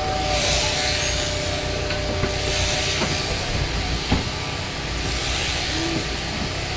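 Sheep-shearing machine running: the overhead-driven shearing handpiece buzzing through a fleece over a steady mechanical hum, with a hiss that swells and fades as the strokes go.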